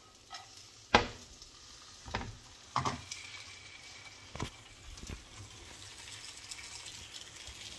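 A vegetable pancake frying in a little olive oil with a faint sizzle. A metal spatula knocks against the frying pan several times as the pancake is flipped, the loudest knock about a second in.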